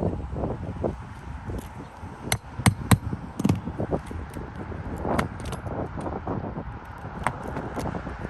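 Irregular knocks, taps and sharp clicks from hand work on brittle old 3-tab asphalt shingles, with a pry tool working nails loose and shingles being lifted. The sharpest cluster comes a little over two to three and a half seconds in.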